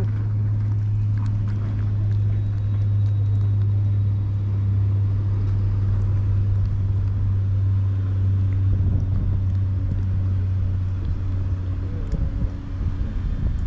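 Steady low hum of an engine running, easing off a little near the end.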